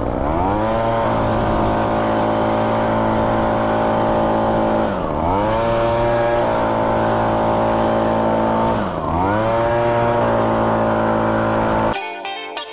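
Leaf blower running at high throttle, its pitch climbing in the first second, then easing off and revving back up twice as the trigger is let off and squeezed again. Music cuts in near the end.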